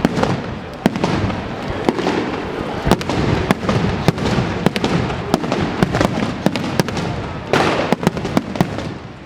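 Fireworks display: a rapid, irregular run of sharp bangs and crackles over a continuous rumble, with a louder rushing burst about seven and a half seconds in.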